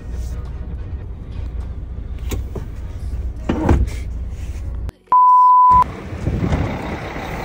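Low steady rumble of an idling truck engine with a few knocks, then a sudden cut and a loud, steady single-tone electronic beep lasting under a second, about five seconds in, followed by noisier outdoor vehicle sound.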